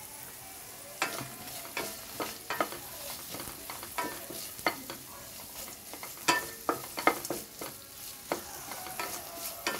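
A spoon stirring a sizzling seasoning of spices and urad dal frying in a pan. Irregular scrapes and taps of the spoon on the pan come over a steady frying hiss.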